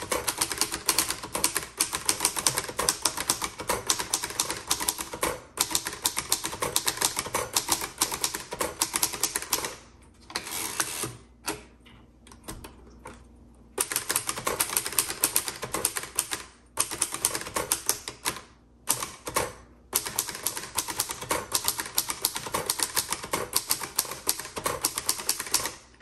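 1954 Hermes Rocket manual portable typewriter being typed on at speed: a rapid run of type bars striking the platen, broken by a few short pauses, the longest about twelve seconds in.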